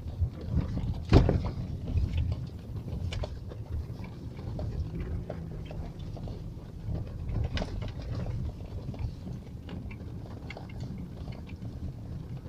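Car crawling through drifted snow, heard from inside the cabin: a steady low rumble of engine and tyres with scattered knocks and clicks, and one loud thump about a second in.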